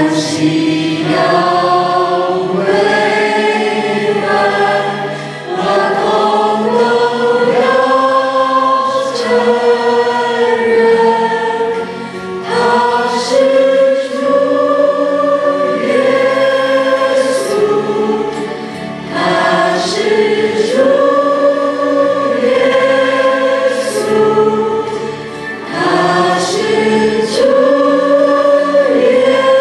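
A worship team of three women and a man sing a Mandarin worship song into microphones. They sing long held phrases with brief breaks between them every six or seven seconds.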